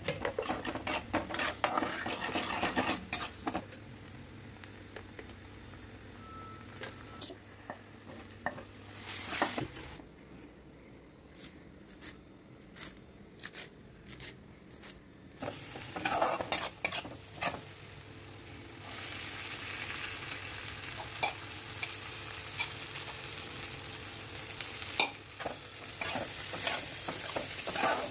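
A metal spatula stirring and scraping through vegetables sizzling in oil in a kadai. Midway comes a quieter stretch of a knife chopping coriander on a wooden board, evenly spaced knocks about two a second. Then comes a steady sizzle from about two-thirds of the way in, as corn kernels fry and are stirred in a pan.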